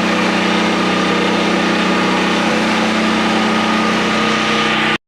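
Small engine of a tree-watering sprayer running steadily at a constant speed, with a steady hiss over it, cutting off suddenly near the end.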